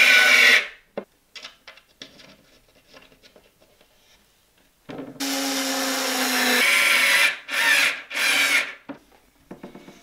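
Bosch IXO cordless screwdriver driving screws into plywood. Its motor whine cuts off about half a second in, and small clicks of handling follow. A second, longer run starts about five seconds in and ends with two short bursts.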